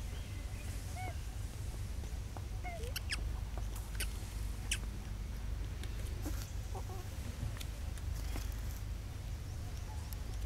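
Outdoor ambience with a steady low rumble. Over it come a few short, high squeaky chirps in the first few seconds and several sharp clicks a little later.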